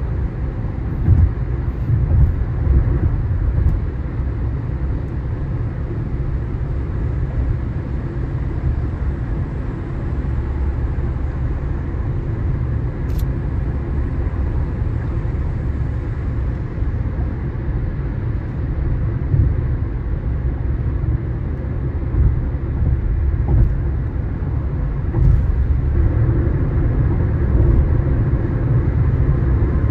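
A car driving on the road: a steady low rumble of tyre and engine noise, with a brief click about halfway through.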